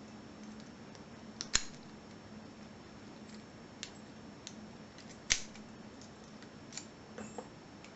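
Keys being put into and turned in a 5-pin ACE closed-shackle padlock: a few scattered small metallic clicks and taps, the two sharpest about a second and a half in and just past five seconds.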